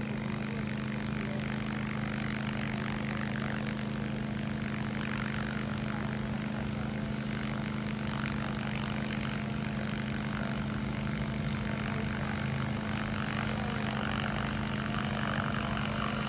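Multi-rotor crop-spraying drone's propellers humming steadily in flight, at an unchanging pitch.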